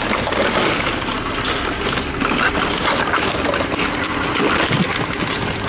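Tomra 42 can reverse vending machine running with a steady mechanical noise as it takes in and crushes cans.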